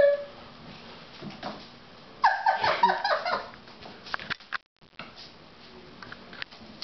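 A short burst of a woman's laughter about two seconds in, followed by a quiet room with a few scattered soft taps and knocks.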